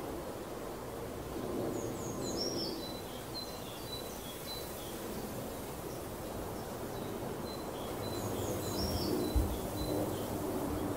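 Outdoor ambience: a steady low rumble with birds chirping in two short bursts, about two seconds in and again near nine seconds, and a brief low thump shortly after the second burst.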